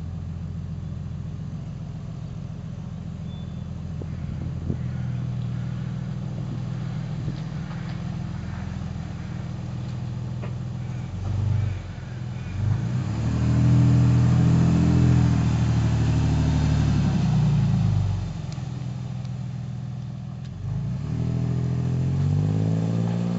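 Jeep Cherokee KK engine through a custom exhaust with a Magnaflow stainless muffler and 3-inch stainless tailpipe, idling steadily, then revving up and down loudly as the Jeep backs out and moves off, with the note climbing steadily as it accelerates away near the end.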